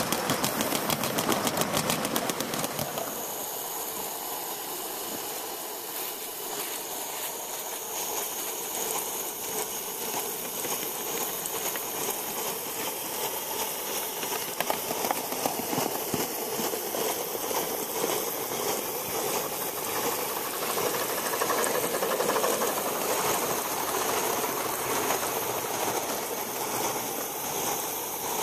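Gauge 1 live steam model railway: rapid, even clicking as a goods train passes for the first few seconds, then a steady hiss of steam from the model steam locomotives.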